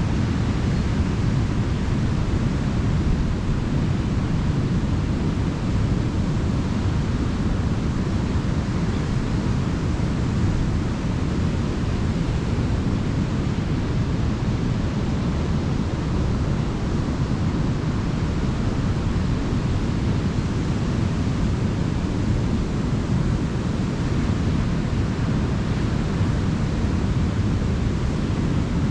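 Ocean surf on a beach: a steady, continuous wash of waves, deep and heavy in the low end, with no single break standing out.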